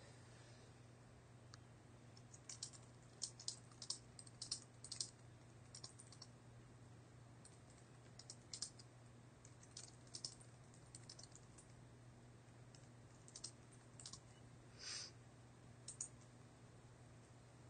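Faint typing on a computer keyboard, keystrokes coming in short irregular bursts with pauses between, over a steady low electrical hum.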